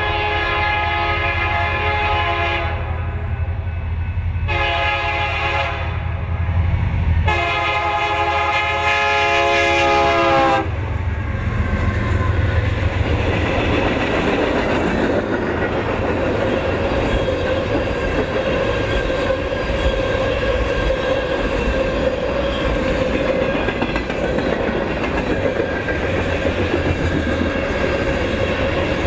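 Approaching freight train's air horn sounding three blasts: a long one ending about three seconds in, a short one, then a final blast of about three seconds that stops abruptly. After that the train passes close by, its wheels clattering over the rails with a steady low rumble as boxcars and tank cars roll past.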